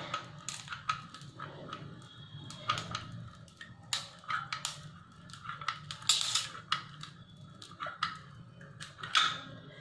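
Stainless steel shavige (idiyappam) hand press being squeezed, with irregular clicks and short scrapes as rice dough is forced out in thin strings.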